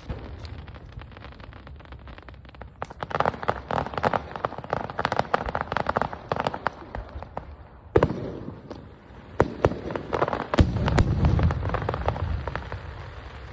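Aerial fireworks going off: a dense run of crackling bursts from about three seconds in, a sharp bang just past the middle, then more bangs and crackle over a low rumble before it dies down near the end.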